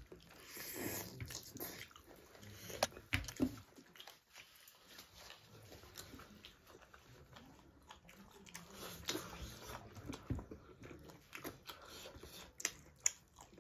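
Close-up eating sounds: biting and chewing chicken drumstick meat and rice, with scattered wet smacks and clicks, two or three of them sharper and louder.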